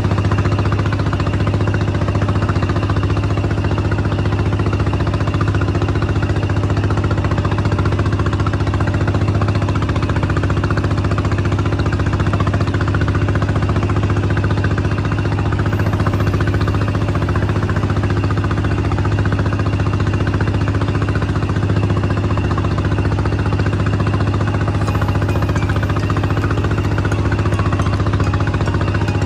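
A small fishing boat's engine running steadily while underway, a constant low hum that does not change in speed, over a steady rush of water and wind.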